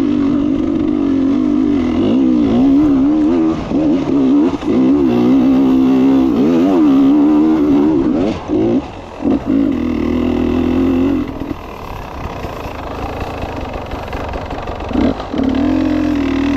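Off-road dirt bike engine revving hard and unevenly while the bike claws up a steep grassy slope. The revs rise and fall repeatedly and cut out briefly past the middle, then the engine runs lower and quieter before picking up again near the end.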